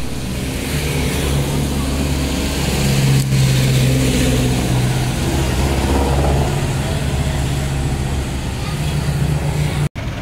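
Street traffic with a motor vehicle's engine running close by, a steady low hum. The sound drops out for an instant near the end.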